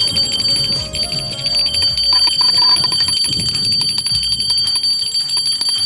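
Brass puja hand bell rung rapidly and continuously during the aarti, a steady high ringing with fast repeated strokes of the clapper.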